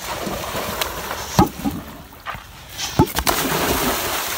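A crocodile provoked with a stick, with two sharp knocks about a second and a half apart, then water splashing and churning near the end.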